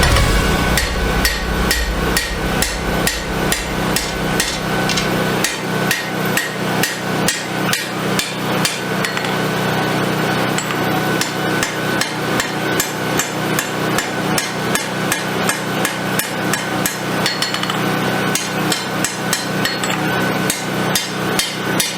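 Hammer blows on hot 5160 spring steel being rough-forged into a sword blade, struck in a steady rhythm of about three a second, with a steady low hum underneath.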